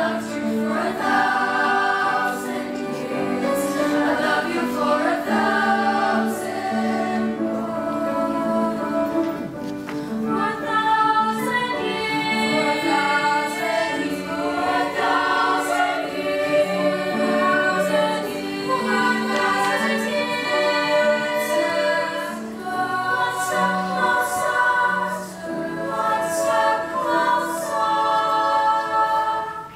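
High-school girls' treble choir singing in harmony, several voice parts holding notes together.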